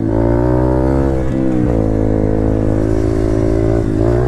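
Dirt bike engine running hard under throttle while being ridden. The pitch steps down about a second and a half in, holds, then climbs again near the end.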